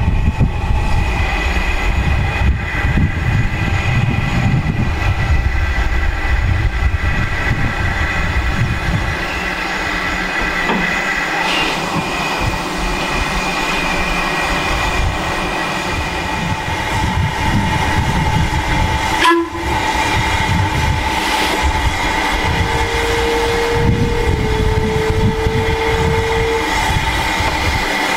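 LMS Ivatt 2MT 2-6-2 tank engine and its short freight rake moving slowly. There is a steady rumble of wheels and running gear with a steady steam hiss, and one sharp knock about two-thirds of the way through. Near the end a steady tone holds for about four seconds.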